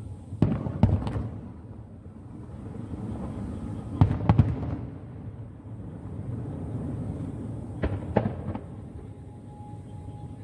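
Aerial firework shells bursting: three clusters of two to four sharp bangs, about four seconds apart, with a low rumble between them.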